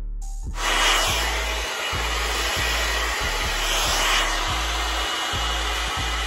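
Hand-held hair dryer switched on about half a second in and blowing steadily, a loud even rush of air.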